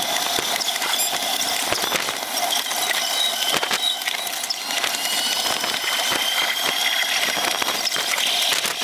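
Open-sided Volk's Electric Railway car running along its track: a steady high whine with irregular clicks and rattles from the wheels and car.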